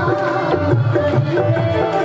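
Punjabi-style devotional song: a harmonium sounding steady held chords, a hand drum keeping a rhythm, and several voices singing into microphones.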